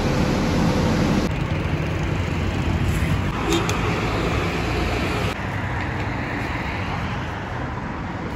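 Road traffic: cars passing on a busy city road, a steady wash of engine and tyre noise. For about the first second a steady hum is heard, then it cuts off.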